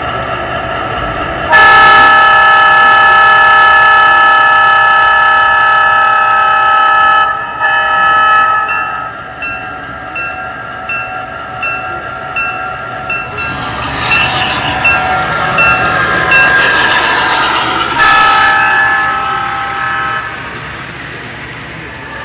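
MTH O-gauge GP9 model diesel's onboard sound system: a long multi-tone horn blast, then a short one, then the bell ringing about two strikes a second. The diesel sound swells, and another horn blast comes near the end.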